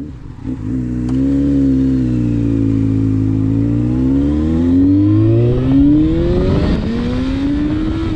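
Motorcycle engine pulling away, its pitch holding and then climbing steadily as it accelerates, dropping back at an upshift about six seconds in and again at the very end.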